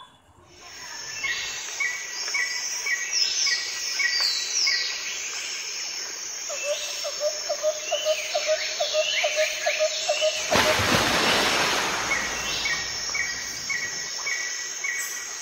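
Chirping bird calls over a steady high hiss: quick repeated chirps, about three a second, with short falling calls. A loud rush of noise lasts about a second and a half, about ten seconds in.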